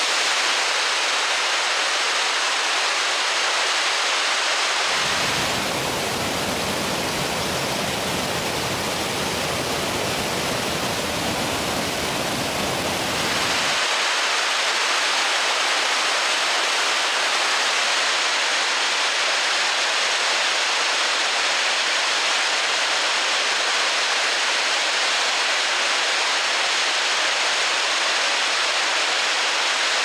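Waterfall rushing steadily. From about five seconds in until about fourteen seconds it has a deeper rumble, then goes back to a brighter hiss.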